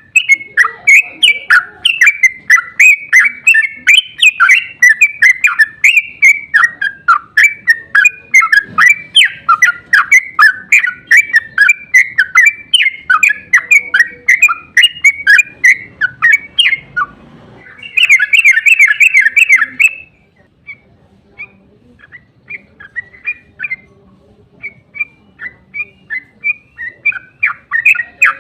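Yellow-vented bulbul (trucuk) singing a long, rapid run of loud chirping notes, about three or four a second, in the fast rolling 'ropel' style used to lure other trucuk into answering. A dense burst of calls comes about two-thirds of the way in, followed by quieter, scattered notes.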